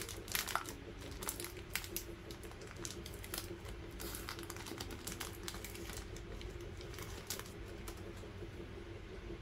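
Crinkling of a Milkybar's plastic wrapper and foil inner wrap as they are peeled open by hand, in scattered sharp crackles that thin out near the end.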